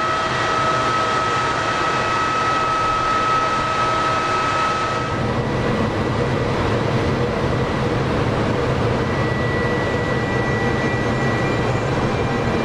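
Trenitalia E.464 electric locomotive standing at the platform, its electrical equipment and cooling blowers running with a steady rushing hum and thin whining tones. The higher whine cuts out about five seconds in, and lower and higher tones carry on after it.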